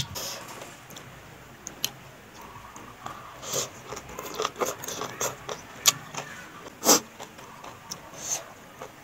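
A person slurping and chewing noodles mixed into papaya salad, with irregular wet mouth smacks and clicks.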